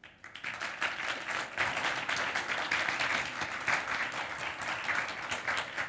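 Audience applauding, swelling over the first second or so and thinning out near the end.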